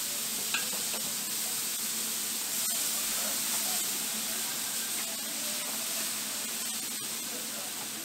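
Skewered squid sizzling on a hot flat-top griddle as flames flare over it: a steady hiss with a few faint crackles.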